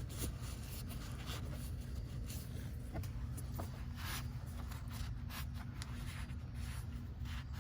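Faint scraping and rubbing with a few light clicks, over a steady low hum.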